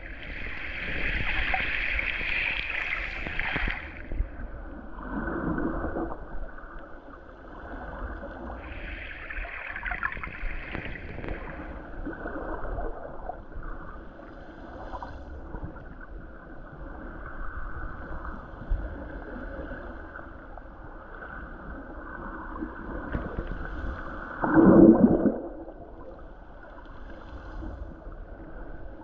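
Muffled gurgling and sloshing of water heard from just below the surface, with a louder surge near the end.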